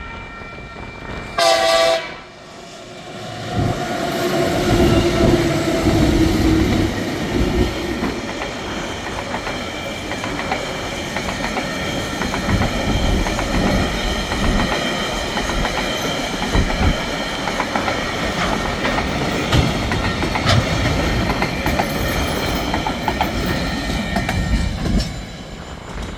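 A short diesel locomotive horn blast about a second and a half in, then the TasRail TR-class locomotives working hard as they pass on the climb, followed by a long container train rolling by with wheels clicking over the rail joints, fading near the end.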